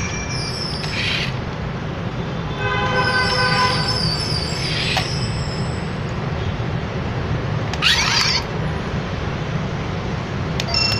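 Battery-powered toy stunt car running: a steady motor hum, with a short electronic beeping tune a few seconds in and brief sweeping electronic sound effects later.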